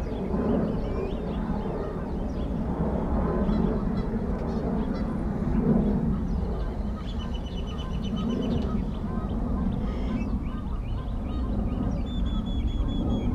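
Geese honking repeatedly, over a steady low rumble of noise. Short runs of rapid, high-pitched ticks come about seven seconds in and again near the end.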